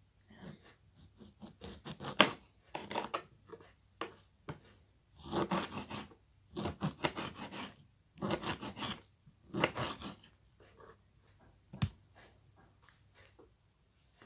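A knife cutting and scraping through a lemon's peel and flesh: irregular rasping strokes in clusters, with a sharp tap about two seconds in and another near twelve seconds.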